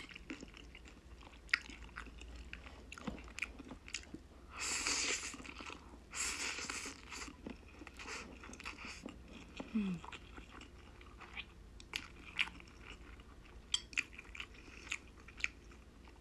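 Close-miked eating of spicy black-bean instant noodles: two long noodle slurps between about four and seven seconds in, amid wet chewing and mouth clicks.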